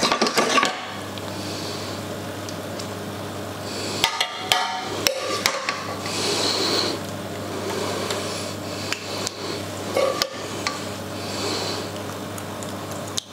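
A metal utensil scraping and clinking against a frying pan of tomato sauce and a metal roasting tin as the sauce is spooned over pasta, with a few sharper knocks and stretches of scraping over a steady low hum.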